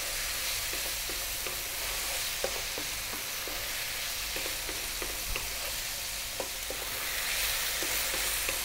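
Cubed beef with onions and spices frying on high heat in a non-stick pan: a steady sizzle, with scattered light scrapes and taps from a wooden spatula stirring it.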